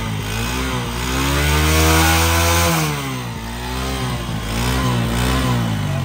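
Honda CD 70's small single-cylinder four-stroke engine being revved in place: the revs climb and hold for about two seconds, fall back, then rise again in a few shorter throttle blips.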